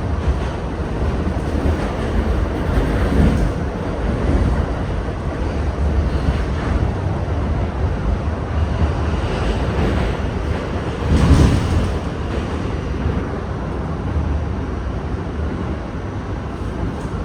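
R68 subway train running at speed: a steady rumble of wheels on rail with rushing air noise. It swells into a louder clatter about eleven seconds in.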